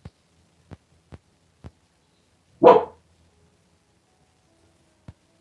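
A dog barks once, sharply, about two and a half seconds in, with a few faint clicks before and after.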